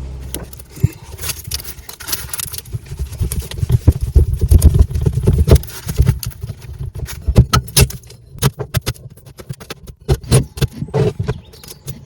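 Irregular knocks, clanks and scrapes of tools on metal as a boat's chain plate is worked loose, with a low rumble in the first half.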